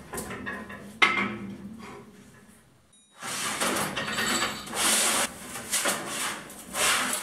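A sharp metallic clank about a second in, then thin sheet metal being slid and handled on a sheet metal bending brake: an uneven rubbing, rattling sheet-metal noise in surges over the last four seconds.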